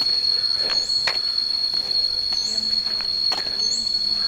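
Jungle insects making one steady, high-pitched unbroken drone, with short rising chirps repeating above it. A few brief knocks are heard along with it.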